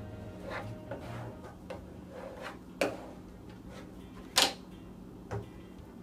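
Plastic squeegee rubbing and tapping over a vinyl decal on an outboard cowl, then a sharp clack, the loudest sound, about four and a half seconds in as the squeegee is set down on the wooden table, followed by a lighter knock.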